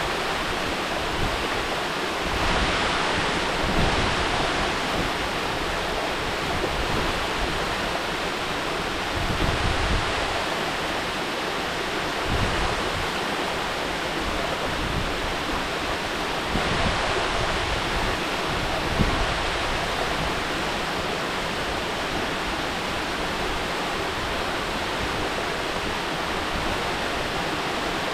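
Mountain waterfall rushing steadily, a dense even roar of falling water, with brief low rumbling surges every few seconds.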